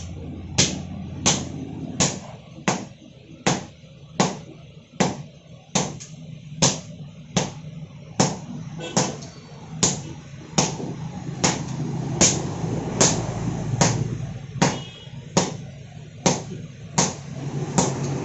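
Sledgehammers struck in turn by two strikers on red-hot steel on an anvil, hand-forging a knife blade: a sharp clang about three times every two seconds in a steady rhythm. A low steady hum runs underneath and grows louder in the middle.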